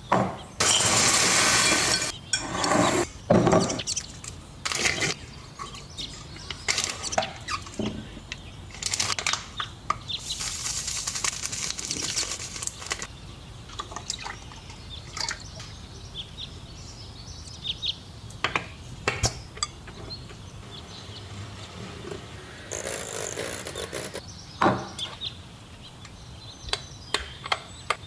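Dessert preparation with kitchen utensils and bowls: scattered clinks, taps and scrapes. Two longer rushing noises stand out, one of about two seconds near the start and one of about two and a half seconds about ten seconds in.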